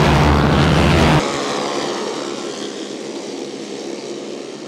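A pack of Briggs & Stratton flathead kart racing engines running at speed in a race. The sound drops sharply about a second in and carries on quieter as the field runs farther off.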